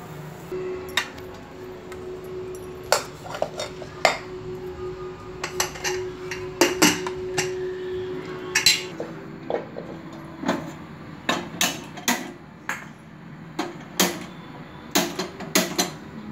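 A steel spatula and spoons knocking and clinking against steel pans, plates and bowls: irregular sharp metallic strikes, some in quick pairs. A steady low hum runs under them for about the first ten seconds, then stops.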